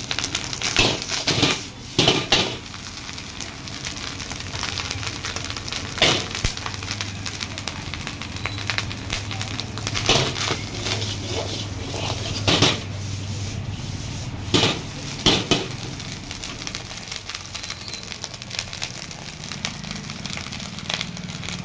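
Steel ladle striking and scraping a large wok as fried rice is stirred and tossed, in short clusters of sharp clanks every few seconds, over a steady sizzle and the hiss of the gas burner.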